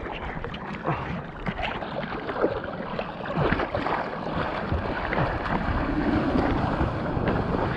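Water splashing and sloshing against the nose of a surfboard as a surfer paddles it prone across small, calm waves.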